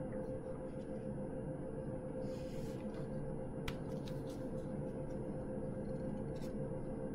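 Steady background hum and hiss of a computer microphone, with a short rush of noise about two and a half seconds in and a few faint clicks.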